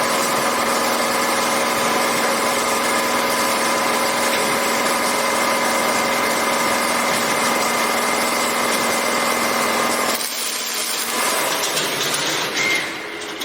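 Industrial machinery running steadily with a constant multi-tone hum over a noisy hiss, cutting off sharply about ten seconds in and leaving a weaker, uneven mechanical noise.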